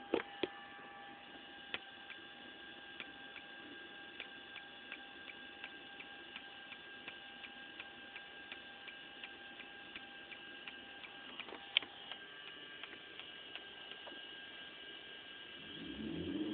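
Car audio speakers putting out electrical interference noise with the car on: a steady high-pitched whine of several tones with faint ticking about three times a second, and a sharper click about twelve seconds in.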